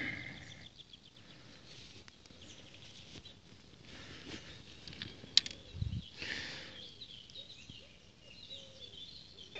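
Quiet field ambience: footsteps and rustling through grass and dry soil, with birds chirping faintly in the background.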